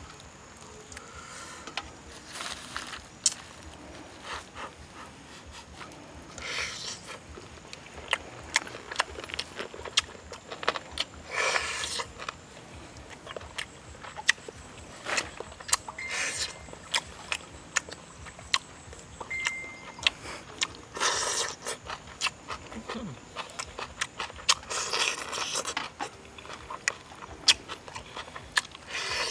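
Eating grilled pork ribs up close: meat torn from the bone by hand, chewing and lip-smacking, heard as irregular short clicks and bursts.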